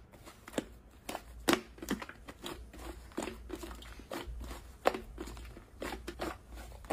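Soft pink slime being kneaded and stretched by hand: irregular sticky pops and crackles, with a few sharper clicks.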